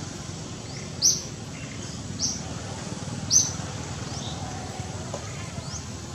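A small bird repeating a short, high, slightly rising chirp roughly once a second, the loudest three in the first half, over steady low background noise.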